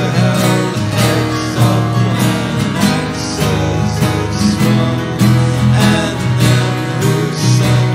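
Song with strummed acoustic guitar and a steady beat.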